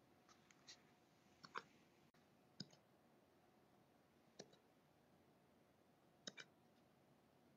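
Golden retriever puppy hiccuping: faint, short, sharp hics coming every one to two seconds, some in quick pairs.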